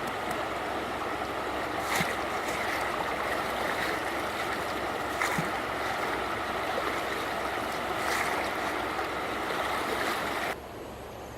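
Steady rush of moving water with a few sharp clicks, dropping abruptly to a quieter background near the end.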